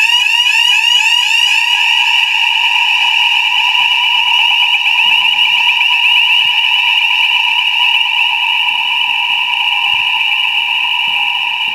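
Electronic fire alarm sounder going off: a loud, high-pitched tone pulsing in rapid, repeated rising sweeps. About two seconds in, its upper overtones drop away and it smooths into a steadier tone, a little quieter near the end.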